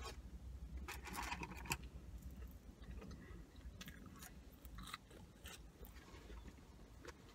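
Close-up chewing and biting of a McDonald's cheeseburger, with small mouth clicks. There is a brief rustle about a second in, from handling the cardboard burger box.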